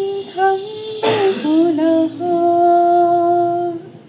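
A woman singing a slow, wordless melody without accompaniment, ending in one long held note that stops shortly before the end.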